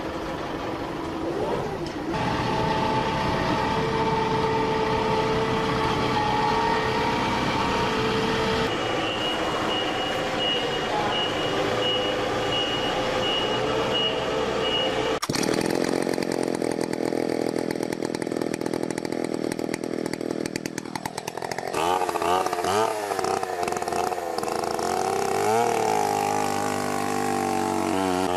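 Chainsaw and wood-cutting machine engines running through a series of short clips that change abruptly several times. In the last few seconds the engine pitch rises and falls repeatedly as it is revved.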